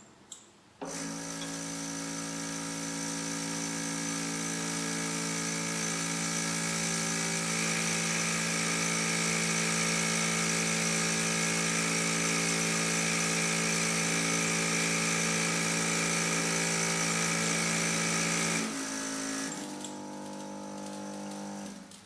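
Two short clicks, then a Contador 2 seed counter's vibrating feeder starts and buzzes steadily while it counts seeds. Near the end it drops to a quieter, lower hum for about three seconds before it stops.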